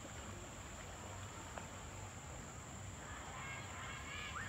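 Outdoor insect ambience: a steady, high-pitched insect trill, with a few faint bird chirps near the end, one rising.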